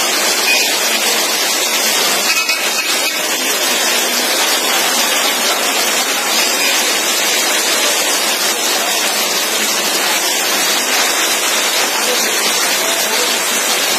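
Heavy rain falling, a steady hiss with no thunderclaps.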